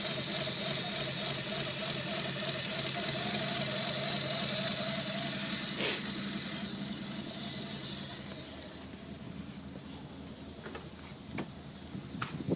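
Mitsubishi 6G75 V6 engine running with a cylinder 4 misfire. A single sharp click about halfway through, and the engine sound gets noticeably quieter about two-thirds of the way in.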